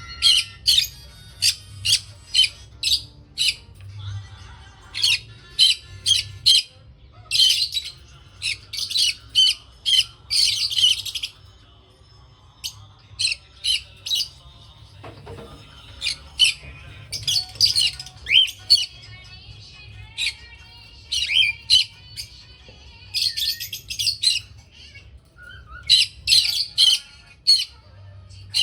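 Small pet parrots giving shrill, high-pitched chirps and squawks in rapid clusters, with short pauses between bursts. A steady low hum runs underneath.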